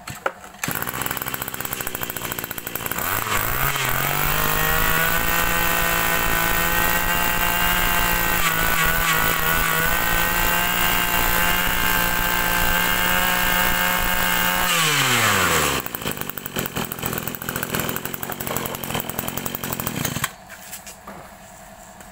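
Small two-stroke brush cutter engine starting up, then revved to high speed about three seconds in and held steady. Near 15 s the throttle is released and the pitch drops fast to idle. The engine is shut off at about 20 seconds.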